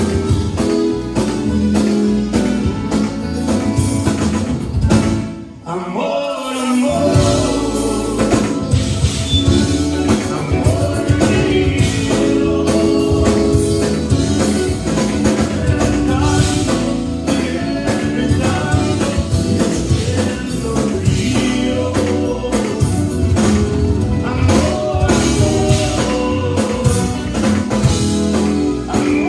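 Live Tejano conjunto band playing through a PA: button accordion, electric guitars, bass and drum kit, with a man singing. The band briefly drops out about six seconds in, then comes back in.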